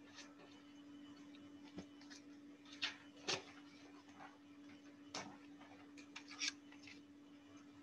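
Quiet room tone with a steady low hum and about six scattered sharp clicks and taps. The loudest two come close together about three seconds in, and another comes near six and a half seconds.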